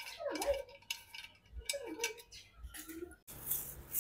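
Metal exhaust parts and hand tools clinking and scraping as they are handled, in irregular light knocks. A loud rushing hiss starts near the end.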